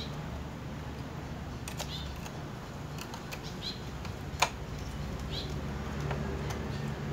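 Plastic grille and chrome trim pieces clicking and tapping as hands fit them together, a few sharp clicks with the loudest about four and a half seconds in, over a steady low hum. Short high bird chirps come now and then.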